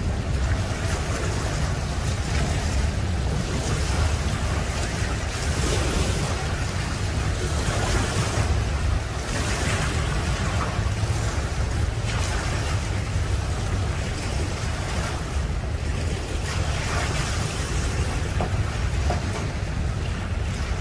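Lake waves washing up and breaking on a concrete boat ramp, the splash swelling every few seconds, over a steady low rumble of wind on the microphone.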